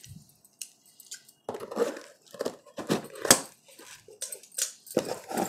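Tape-wrapped cardboard box being pulled and torn open by hand: a run of crackling, rustling snaps that starts about one and a half seconds in and is loudest a little past the middle.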